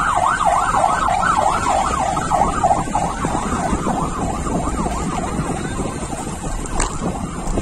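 A siren in a fast yelp, its pitch sweeping up and down about three times a second, fading out a little over halfway through. Wind and road noise run underneath.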